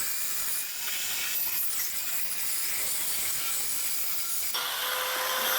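Steady high hiss of a hand angle grinder converted into a small circular saw with a 4-inch saw blade, running at high speed. Its sound changes about four and a half seconds in, when a low steady tone comes in.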